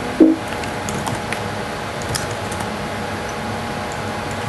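Scattered soft keystrokes on an Apple laptop's keyboard, over a steady hum of room noise.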